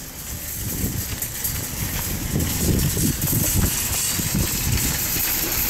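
Footsteps on wet asphalt, a run of irregular low thuds under a steady outdoor hiss with wind rumble on the microphone.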